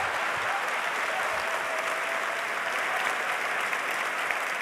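Large auditorium audience applauding steadily.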